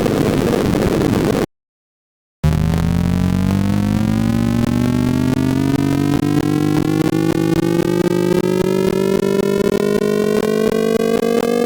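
Synthesised sorting-algorithm sonification: a dense noisy clatter of short pulses, which cuts off about a second and a half in. After a second of silence comes a buzzy electronic tone that glides steadily upward in pitch, with higher data values giving higher pitches.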